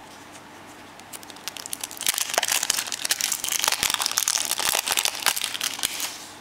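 Clear plastic wrapper crinkling as it is peeled off a plastic surprise egg: rapid crackling that starts about a second in, grows busy by two seconds and dies away near the end.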